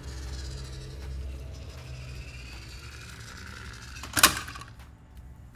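A plastic toy monster truck drops into a clear plastic storage bin and lands with a single sharp clatter against the toy cars inside, about four seconds in.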